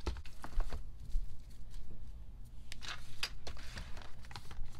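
Album packaging being handled and set down: a cluster of light knocks and taps in the first second or so, then short rustles around three seconds in and again near the end.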